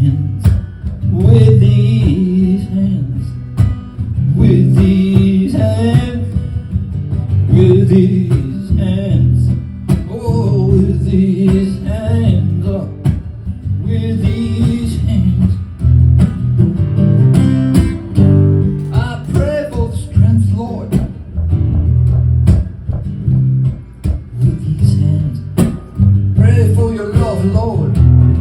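Guitar playing an instrumental passage of a slow song over a steady, repeating bass line.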